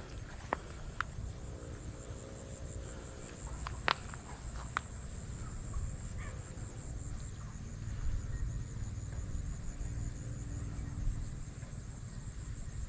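Insects trilling steadily in a high, finely pulsing buzz over a low rumble, with a few sharp clicks in the first five seconds.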